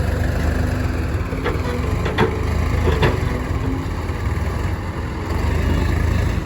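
Diesel engine of heavy earth-moving machinery running steadily, with a few short sharp knocks near the middle.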